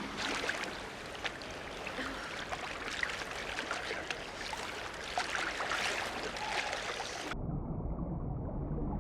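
Sea water splashing and sloshing close up, full of small crackling splashes. It cuts off abruptly about seven seconds in, leaving only a low rumble.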